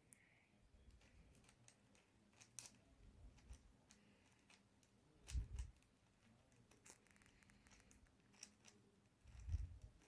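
Faint, scattered clicks and clacks of a plastic 5x5 puzzle cube's layers being turned by hand, in near silence, with two slightly louder low knocks about halfway through and near the end.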